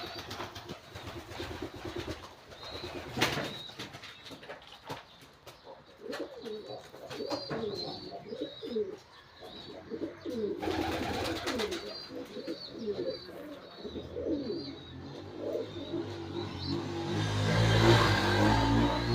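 Domestic pigeons cooing over and over, with a run of short high chirps above them. A louder rustle or flutter comes near the end.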